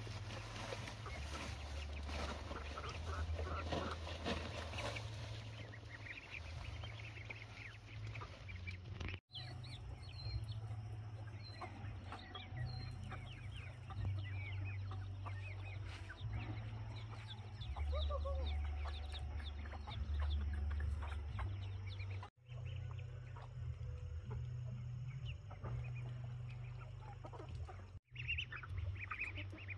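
Chickens clucking over a steady low rumble; the sound drops out abruptly three times.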